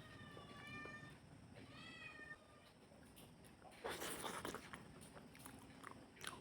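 Domestic cat meowing twice: one call carried over into the first second, then a shorter call that rises and falls about two seconds in, begging for food. A louder burst of eating noise follows about four seconds in.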